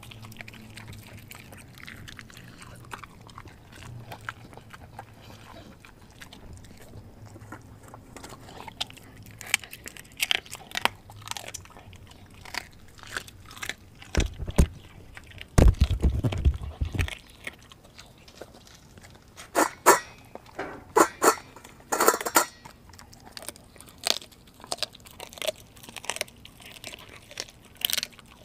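A pit bull–German Shepherd mix dog chewing and crunching raw meat and chicken feet: scattered wet bites and bony crunches, busier in the second half, with a brief low rumble about halfway through.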